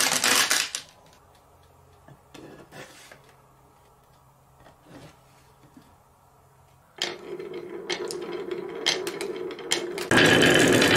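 Many marbles rolling down the wavy wooden channels of a marble run, a continuous clattering rumble. It dies away within the first second, leaving a few faint clicks; about seven seconds in, rolling and clicking start again and swell to full loudness near the end.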